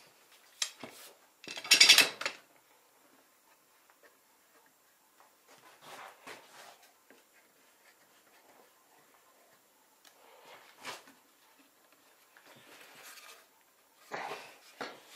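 Steel bar clamps being handled and set on a wooden frame: metal clanks and scrapes, loudest in a clatter about two seconds in, followed by scattered softer knocks and slides as the clamps are put on.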